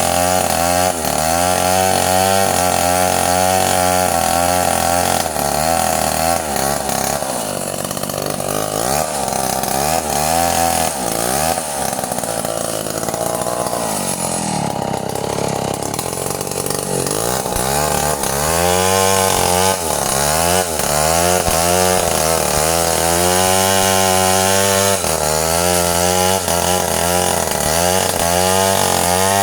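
Stihl two-stroke chainsaw running at high speed; its pitch drops and wavers for about ten seconds in the middle, then rises back up.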